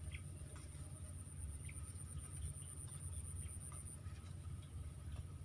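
Steady, high-pitched insect drone, cricket-like, over a constant low rumble, with a few faint clicks. The drone swells a little in the middle and eases back near the end.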